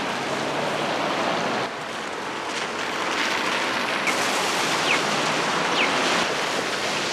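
Steady hiss of heavy rain falling on wet pavement.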